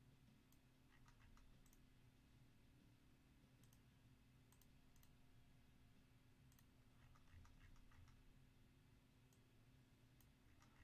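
Near silence: a low steady hum with faint, scattered computer mouse clicks.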